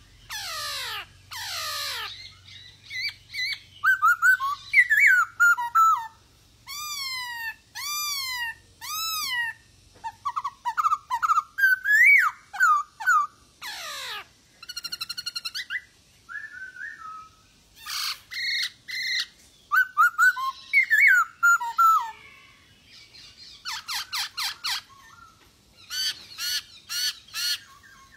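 A male black-throated laughingthrush (poksay Hongkong) singing a loud, varied whistled song of repeated arching notes, rising and falling glides and fast trills, phrase after phrase with short pauses between.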